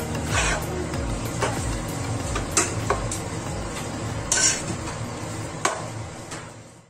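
Metal spaghetti tongs stirring and tossing spaghetti in a non-stick frying pan, with scrapes and clinks against the pan about once a second over a light sizzle. The sound fades out near the end.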